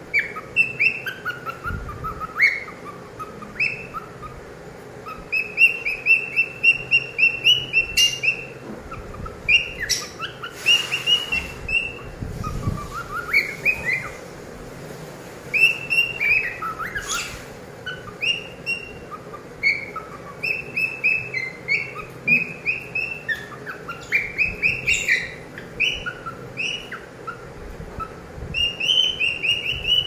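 Cockatiel singing: runs of short, quick whistled chirps, many notes gliding down or up in pitch, with brief pauses between runs.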